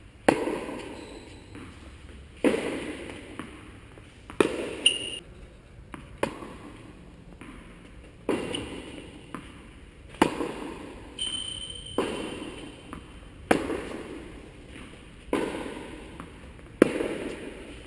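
Tennis rally: the ball struck by rackets and bouncing on the court, a sharp hit about every two seconds, sometimes two close together, each echoing in the large metal-roofed hall.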